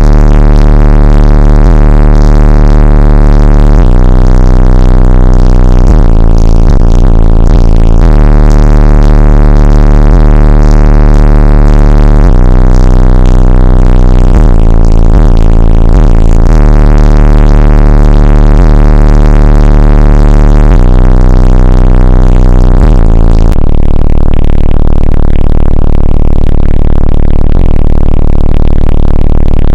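Bass-heavy electronic music played through car subwoofers at extreme volume, overloading the recording. Deep bass notes change every few seconds, then settle into one held low bass for the last few seconds.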